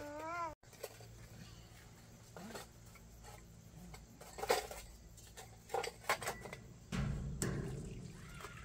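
Dishes and utensils clinking and knocking now and then as they are handled, with a low rumble setting in about seven seconds in. A child's voice is heard briefly at the start.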